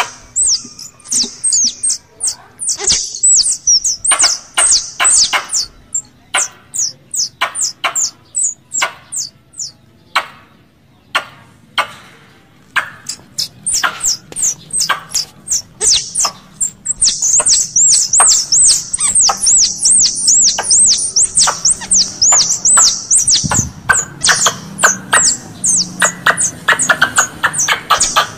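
Squirrel calls: sharp, high-pitched chirps and clicks, spaced out at first, then coming fast and running together from about halfway through. It is a calling track used to lure squirrels within range.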